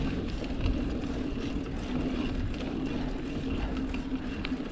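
Mountain bike rolling along a dirt singletrack: a steady hum of the tyres on the ground, wind rumble on the microphone, and small clicks and rattles from the bike over bumps.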